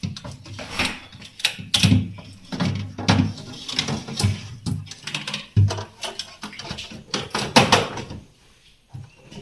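Irregular plastic clicks, knocks and scrapes as fridge thermostat parts are handled, slotted into a notch and pressed into their plastic locks, with a short quiet spell near the end.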